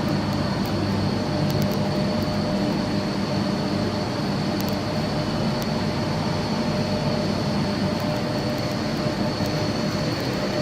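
Machinery running steadily: a continuous hum with a constant mid-pitched tone and a thin high whine, and a few faint ticks.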